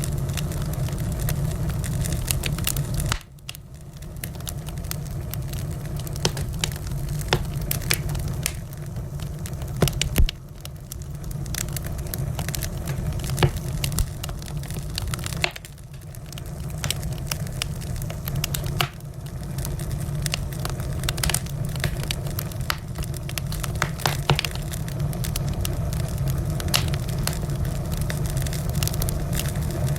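Wood fire crackling, with irregular sharp pops and snaps over a steady low rumble. The rumble drops out suddenly for a moment a few times.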